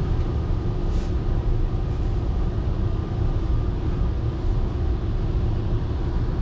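Steady low rumble and hum inside a stationary train car, with a faint steady whine.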